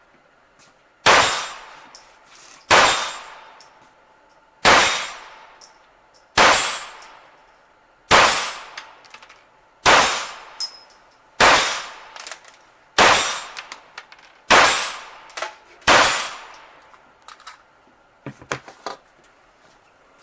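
Smith & Wesson Model 22A .22 LR semi-automatic pistol firing CCI Clean rounds: ten evenly paced shots, one every second and a half to two seconds, each with a short ringing tail. A few small metallic clicks follow near the end.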